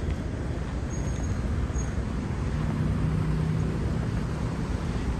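Street traffic noise: a steady low rumble of road vehicles, with a low engine hum coming through about halfway.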